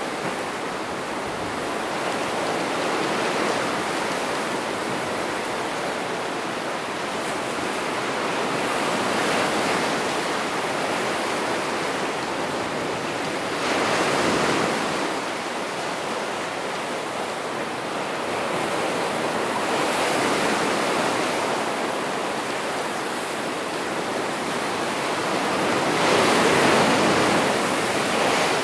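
Ocean surf breaking and washing over shoreline rocks: a steady rush of water that swells with each incoming wave every several seconds, loudest near the end.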